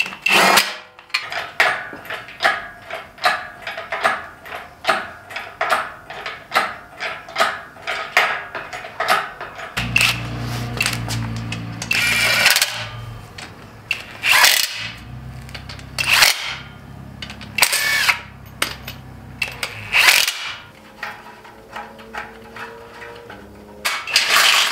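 Bolts being run into a VR38DETT engine's aluminium bell housing: first a quick, irregular string of metal clicks and clinks, then from about ten seconds in a cordless drill-driver spinning in short runs of a second or two, with sharp knocks between them as each bolt seats.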